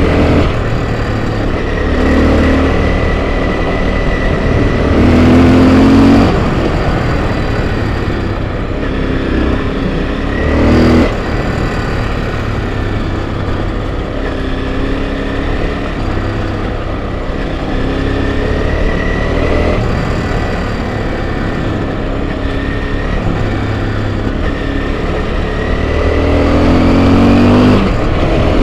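Enduro dirt bike engine running under way on a trail ride, its pitch rising and falling with the throttle, with louder revs about five seconds in, about ten seconds in and near the end.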